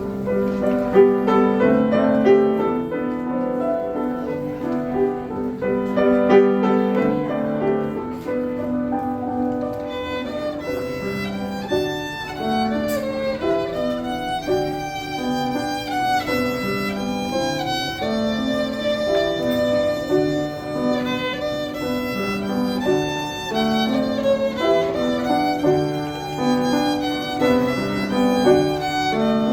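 Live instrumental performance of a pop ballad: piano accompaniment plays alone at first, and about ten seconds in a violin enters with the melody in long held notes over it.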